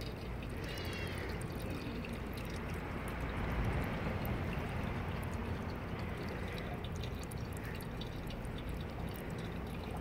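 Water from an outdoor drinking fountain splashing and trickling steadily into its stainless-steel basin.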